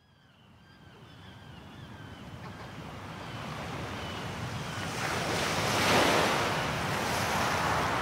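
Sea surf fading in from silence, waves washing and swelling to a peak about six seconds in. Faint short falling bird cries sound over the surf in the first few seconds.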